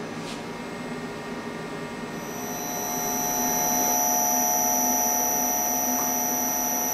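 Inverter-duty Marathon electric motor, unloaded with its belt off, energised by a DURApulse GS20 VFD running its auto-tune. A steady hiss, then about two seconds in a high-pitched electric whine and a hum come in and the sound grows louder and holds steady.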